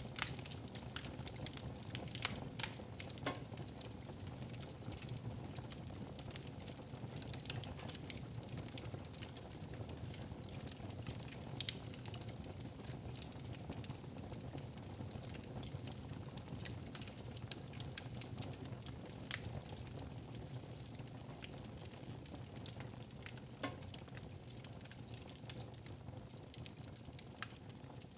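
Wood fire crackling in a fireplace: a steady hiss with irregular sharp pops, easing slightly toward the end.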